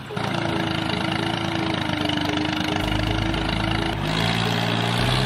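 An engine or motor running steadily with a steady hum, its sound changing about four seconds in.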